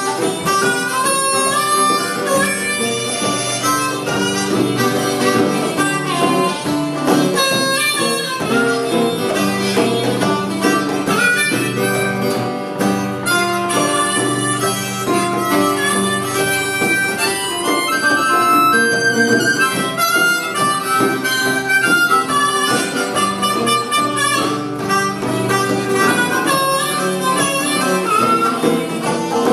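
Blues harmonica playing an instrumental solo over strummed acoustic guitar in a live acoustic blues band.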